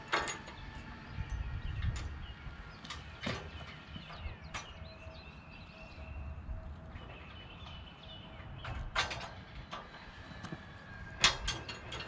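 Scattered metal knocks and clanks with some scraping as a steel sawmill track rail is shifted and set onto its steel base and bolts, the sharpest knock near the end.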